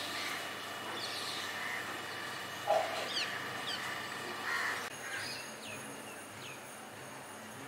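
Outdoor ambience with birds calling: several short, quickly falling chirps and a few louder, lower calls, the loudest a little under three seconds in. A faint steady high whine joins after about five seconds.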